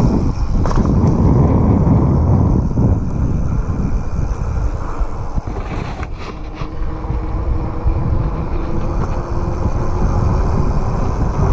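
Wind rushing over an action camera's microphone, mixed with the tyre noise of a downhill mountain bike rolling fast along a road. The rush eases slightly about six seconds in.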